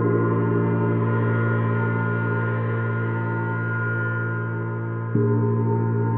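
Paiste Sidereal Moon planet gong ringing with a steady hum of many overlapping tones, strongest low down. It is struck again about five seconds in, and the low tones swell back up.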